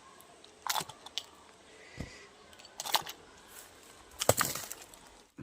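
A few scattered sharp clicks and knocks, the loudest a short cluster about four seconds in.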